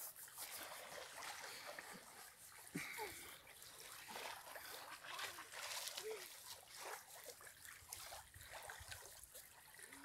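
Small waves lapping faintly at the sandy edge of a calm lake, a soft uneven trickling and splashing.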